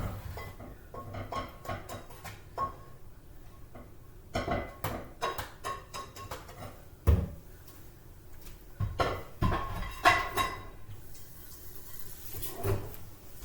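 Kitchen pots, pans and utensils being handled: a run of clinks, clatters and knocks, with the heaviest knocks about seven and ten seconds in.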